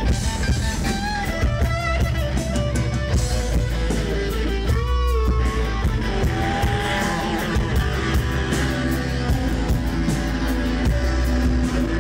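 Live rock from a guitar-and-drums duo: an electric guitar plays an instrumental passage with bent, gliding notes over a pounding drum kit.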